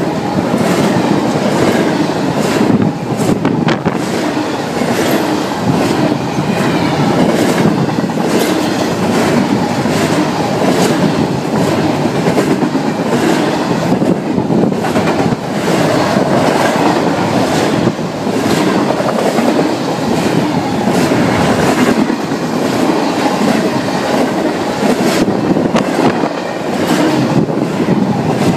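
Norfolk Southern double-stack container freight train rolling past close by: a steady, loud rumble of steel wheels on rail with a continuous irregular clickety-clack as the wheels pass over the rail joints.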